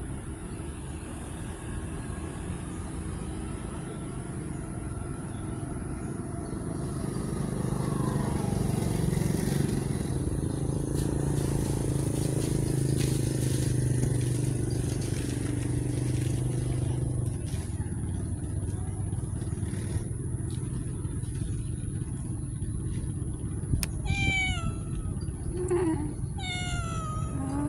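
A motor vehicle's engine hum swells through the middle and then eases off. Near the end a cat meows several times, short calls that fall in pitch.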